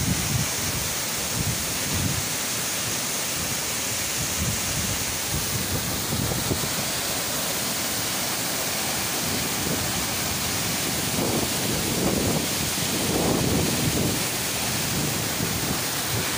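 A waterfall in heavy flow after typhoon rains, falling into a rocky pool: a steady, even rush of water. Low gusts of wind buffet the microphone about two-thirds of the way through.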